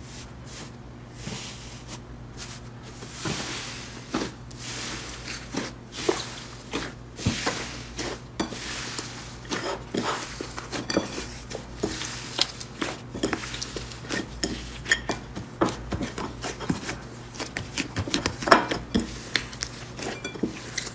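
Slime being squeezed and poked by hand, giving many irregular sharp clicks and pops, over a steady low hum.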